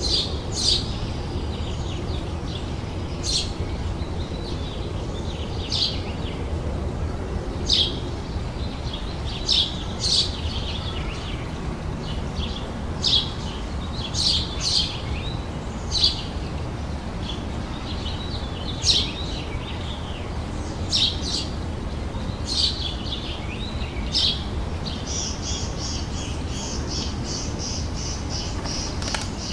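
Birds chirping in the garden: short, sharp, high calls every second or two, joined near the end by a rapid high trill, over a steady low background hum.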